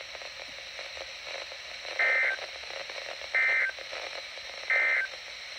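Three short EAS end-of-message (EOM) data bursts from a NOAA Weather Radio receiver, each about a third of a second long and about 1.3 s apart, starting about two seconds in, over steady radio static. They mark the end of the alert.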